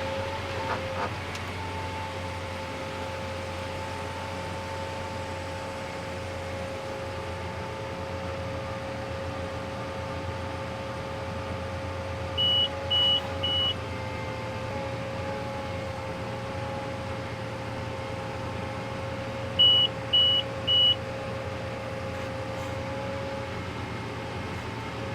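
A harvest machine's engine runs steadily with a constant whine, and two sets of three short, high electronic beeps sound about seven seconds apart, from an alert or warning beeper.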